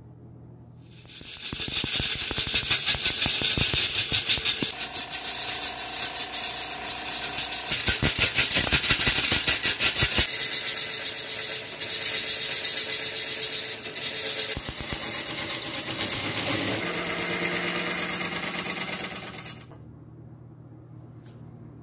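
A turning gouge cuts into a spinning wood-lathe blank of tree root and black resin, making a loud, rough scraping with a fast rattle of tool hits on the uneven surface. The cutting starts about a second in and stops near the end, leaving a low hum.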